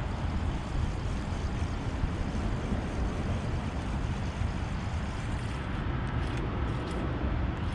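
Wind buffeting the microphone outdoors: a steady low rumble with hiss above it.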